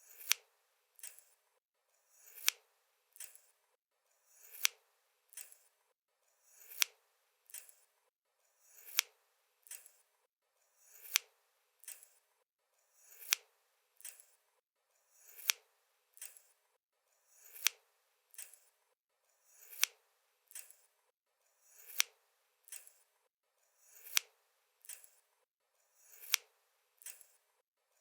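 Scissors snipping at a slow, even pace: a sharp snip followed by a softer click less than a second later, the pair repeating about every two seconds.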